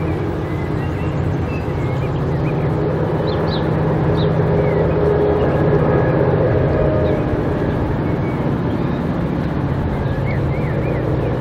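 Diesel locomotives hauling a freight train approach with a steady, loud engine drone. A few short high chirps sound over it.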